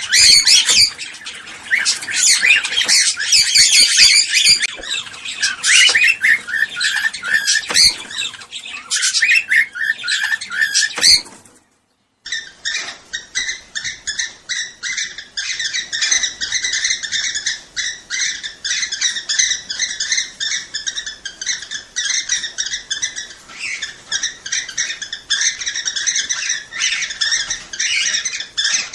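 Cockatiels chirping and whistling in quick, dense runs of calls. The calls break off for a moment a little before halfway, then go on as a steadier, evenly repeating chatter.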